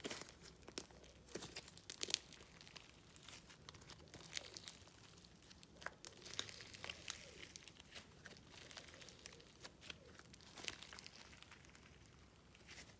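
Thick, stretchy clay slime being squished, stretched and poked by hand, giving off faint, irregular crackling and popping clicks.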